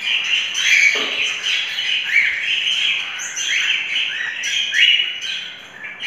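A flock of cockatiels calling over one another: a continuous din of many short, overlapping chirps and calls.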